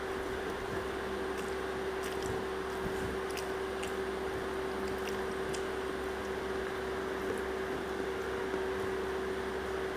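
Faint wet squishes and small scattered clicks of rice and chicken curry being mixed by hand on a banana leaf, over a steady hiss and a constant hum.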